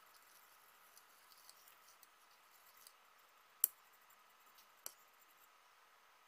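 Quiet handling sounds of a metal offset spatula working buttercream around a cake on a turntable: faint scattered ticks, with one sharp click about three and a half seconds in and a smaller one about a second later.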